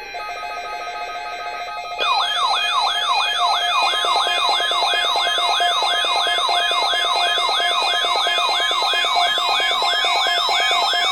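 Electronic weather warning alarm sounding for its weekly test: a loud tone that sweeps up and down about two and a half times a second, starting about two seconds in after a softer steady tone.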